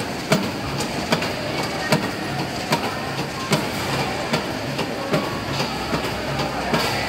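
Modular plastic belt conveyors running: a steady mechanical clatter with a sharp click repeating evenly, a little more than once a second.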